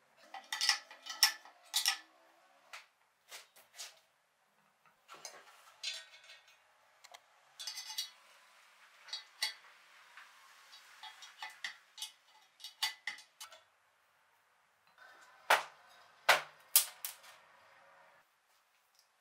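An adjustable wrench clinking and ticking against steel nuts and a bracket as bolts are tightened, in irregular short metallic clicks with a little ringing. A few louder metal clanks come near the end.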